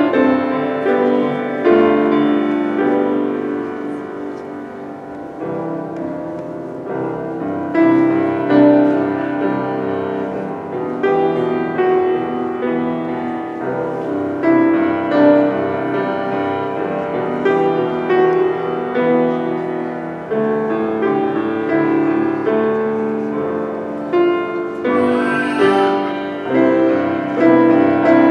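Grand piano played solo: a continuous run of notes and chords, softening for a few seconds near the start before building again.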